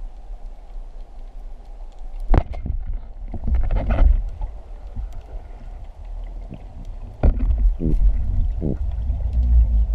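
Underwater recording: a Pathos 90 Open Pro band-powered speargun fires with a sharp crack about two seconds in. Low muffled water rumble and a few knocks follow, growing louder toward the end as the spear line is worked toward the speared fish.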